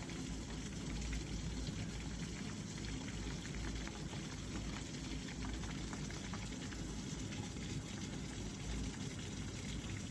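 Heavy rain pouring steadily in a thunderstorm, a dense patter of drops.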